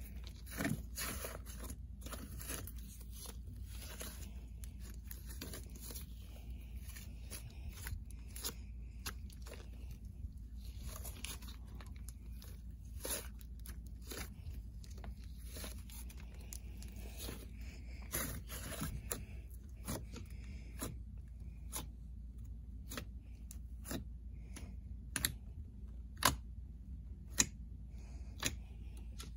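Orange slime with clay mixed in, kneaded, stretched and poked by hand: soft crackling and tearing with scattered sharp pops and clicks, the pops coming more separately in the second half.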